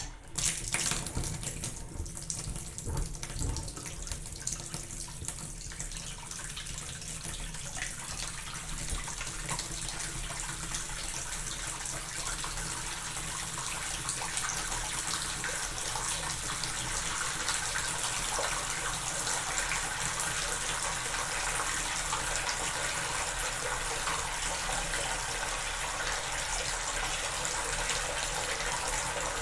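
Bath tap running into a bathtub: a steady rush of water that slowly gets louder, with a few splashy ticks in the first few seconds.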